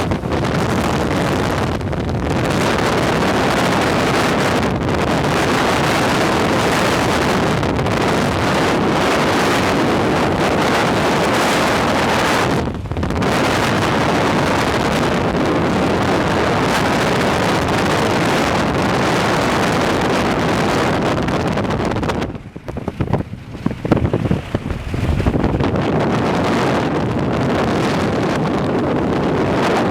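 Strong wind near a tornado buffeting a microphone held out of a vehicle window: a loud, steady rush. It dips briefly about thirteen seconds in, then falls away and comes back in uneven gusts for a few seconds about two-thirds of the way through.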